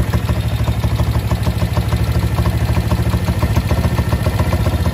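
Warmed-up small air-cooled motorcycle engine with a Nibbi carburetor idling steadily, its idle screw being turned up a little to raise a low idle to about 1500 rpm.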